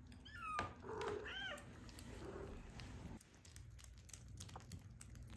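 A kitten mewing twice in the first second and a half: a high call that falls in pitch, then a short call that rises and falls. Only faint ticks follow.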